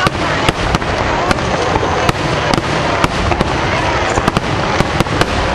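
Fireworks display: a continuous dense crackle and rumble of bursting shells, with sharp bangs about two or three a second.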